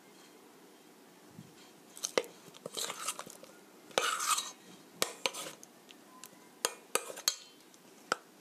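Chopsticks clicking and scraping against a stainless steel mixing bowl as zucchini slices are turned in egg batter: a quick series of sharp clicks and short scrapes from about two seconds in.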